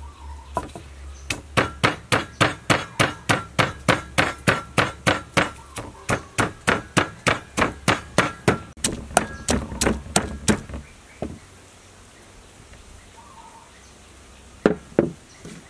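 Wooden pestle pounding garlic in a mortar to make a chili sauce: steady strikes about three a second, stopping after about nine seconds, then two single knocks near the end.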